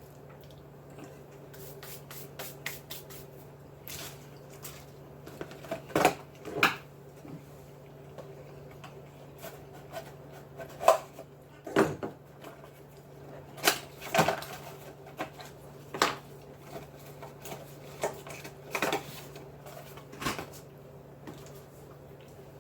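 Scattered small clicks, taps and rustles from handling things at a table, some of them sharp and loud, over a steady low hum.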